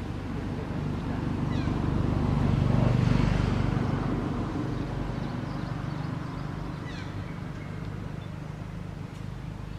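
Long-tailed macaques giving a few short, high, falling squeaks over a low rumbling background that swells about three seconds in and then fades.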